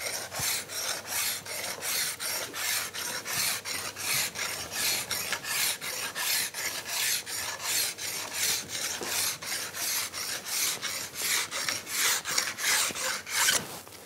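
Second-cut chrome file rasping along a ski's steel side edge in an 87-degree side-edge guide. The file moves in quick, even strokes, about three a second, with pressure on the pull, which shows an aggressive first filing pass. The strokes stop shortly before the end.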